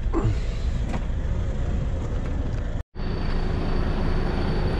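Heavy truck's diesel engine idling steadily, heard from inside the cab while it warms up. A faint high whine runs along in the second half. The sound breaks off briefly about three seconds in.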